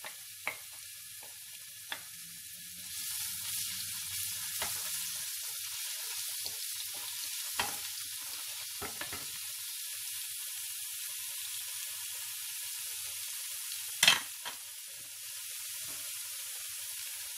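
Ground garlic sizzling in hot olive oil in a pot, the sizzle turning louder about three seconds in as it is stirred with a wooden spoon, with a few light clicks early on and one sharp knock about fourteen seconds in.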